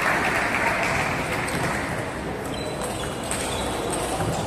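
Spectators' applause dying away over the first couple of seconds, leaving hall chatter, with a few light clicks of a table tennis ball near the end.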